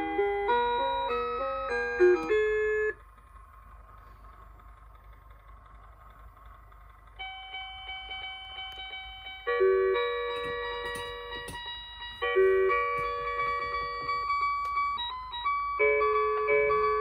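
Simple electronic music from the Mr. Christmas Holiday Soda Shop display's built-in sound chip: a beep-toned melody breaks off about three seconds in. After a quiet gap of about four seconds, another tune starts with held chords and goes on to a new melody.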